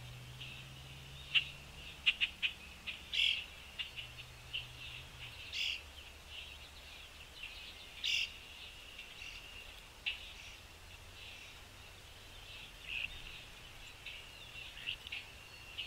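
Small songbirds chirping: many short, sharp calls, scattered irregularly and now and then overlapping, over a faint low hum that fades out about five seconds in.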